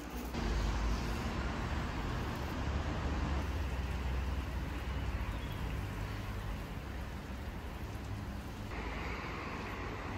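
Steady outdoor street ambience: a low rumble of road traffic, with no speech or music. The background shifts abruptly just after the start and again near the end.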